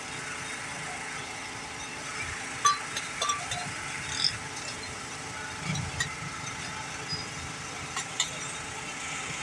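Steady hum of street traffic and engines, with a few light clinks and taps of a spoon and utensils on the metal griddle.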